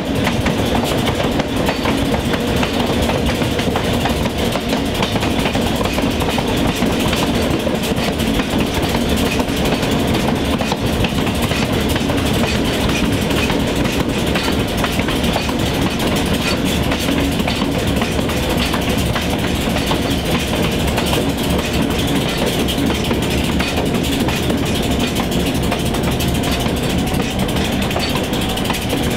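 Diesel locomotive engine running steadily.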